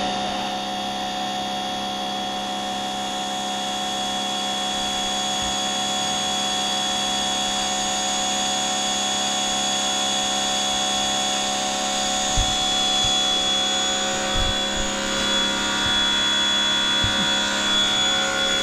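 Pressure washer running steadily: a constant machine drone with a high whine, with a few low bumps in the second half.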